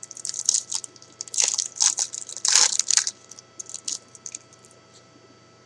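Foil wrapper of a trading-card pack crinkling and crackling as the pack is opened, in a quick run of crisp bursts that dies away about four seconds in.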